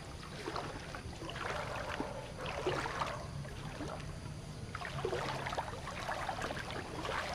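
Water splashing and sloshing in irregular bursts, floodwater being stirred or moved about.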